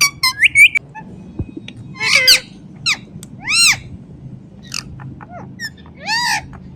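Indian ringneck parakeet calling: a quick run of sharp chirps and clicks at the start, then several separate high, rising-and-falling calls spaced a second or so apart.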